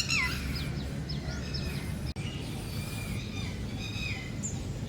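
Wild birds calling and chirping: a loud call right at the start, then a run of short whistled notes and falling glides. Beneath them is a steady low background rumble, and the sound cuts out for an instant about two seconds in.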